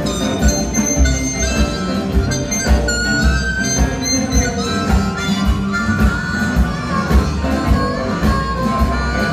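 Live electric blues band playing an instrumental stretch: amplified harmonica cupped to a microphone over a Telecaster and other electric guitars, acoustic guitar, two saxophones and drums, with a steady bass beat.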